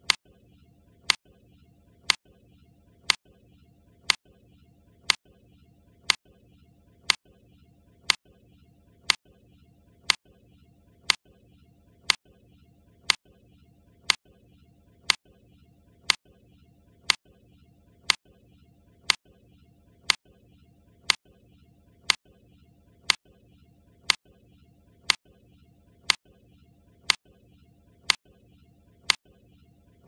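Countdown timer's clock-tick sound effect: one sharp tick every second at an even, steady pace, over faint background noise.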